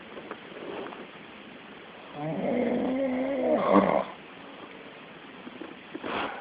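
A man snoring: one long, pitched snore from about two seconds in, lasting nearly two seconds, then a short breathy sound near the end.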